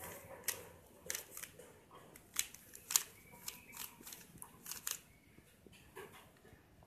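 A plastic 3×3 puzzle cube being twisted by hand: quick, irregular clicks and clacks as its layers snap round, the loudest about three seconds in.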